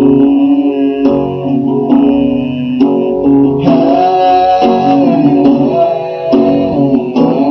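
Live rock music led by guitar, an instrumental stretch of the song with chords struck at a steady beat and a higher note held from about halfway through.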